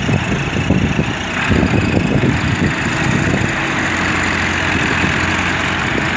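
Diesel engines of a Massey Ferguson 240 tractor and a wheel loader running, uneven and chugging for the first few seconds, then settling into a steady drone about four seconds in.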